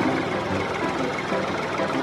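Tractor engine running steadily, with a low thump recurring a little more than once a second.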